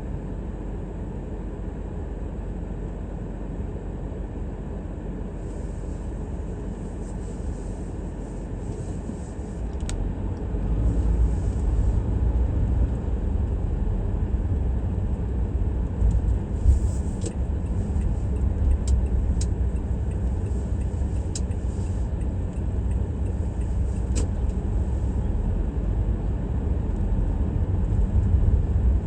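Car driving through city streets: low engine and road rumble that grows louder about ten seconds in, with a few faint ticks.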